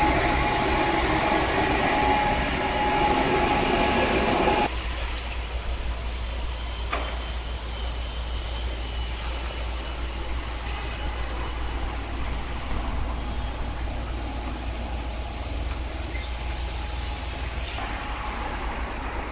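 Loud street noise with a heavy vehicle running close by and a steady whine, which cuts off abruptly about five seconds in. A quieter, steady low rumble of traffic follows.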